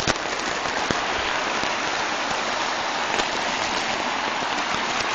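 Muddy floodwater rushing across a road in a strong current, a steady, even rush of water.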